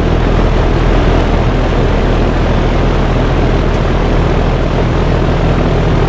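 Iced-up 2013 Trane XB13 three-ton, three-phase heat pump running in heat mode: a steady rush of air from the outdoor fan over a low electrical hum. The unit is frozen over, which the owner takes for a bad defrost board or sensor.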